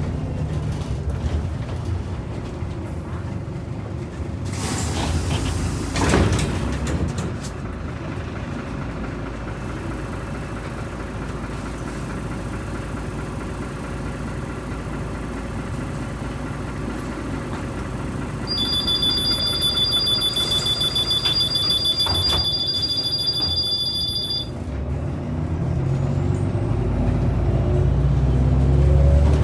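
Inside a 2003 Irisbus Citybus 12M city bus: the diesel engine runs steadily, with bursts of compressed-air hiss about five and six seconds in. Past the middle a steady high two-tone electronic warning beep sounds for about six seconds. Near the end the engine builds up, pulling harder.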